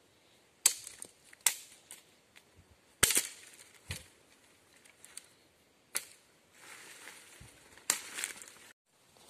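About six sharp cracks of dry branches and sticks being snapped and cut with a machete to gather firewood, with rustling of dry leaves and twigs near the end.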